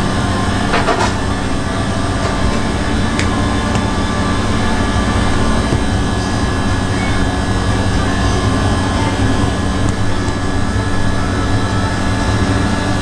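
A steady, loud mechanical drone with a constant low hum, typical of running kitchen equipment such as an extractor fan or burner; a couple of faint clicks come about one and three seconds in.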